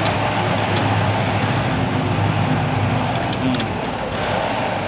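Steady low mechanical hum, like an engine or machine running, with a few faint clicks.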